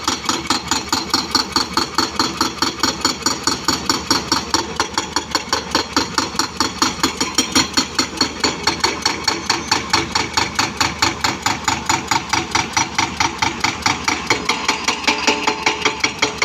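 Excavator-mounted hydraulic breaker hammering continuously, with rapid, evenly spaced blows at roughly four to five a second.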